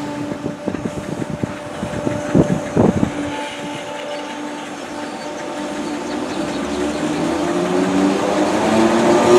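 Merseyrail Class 508 electric train at a station platform: a string of knocks and clatters in the first three seconds over a steady hum, then the traction motor whine rising in pitch and loudness from about seven seconds in as the train pulls away.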